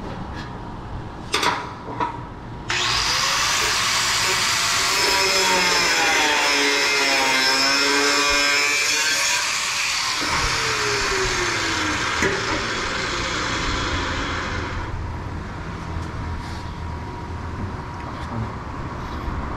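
Two sharp knocks, then a hand-held power tool runs for about twelve seconds on the stainless-steel grill: a loud, steady hiss with a high whine that starts suddenly and stops suddenly.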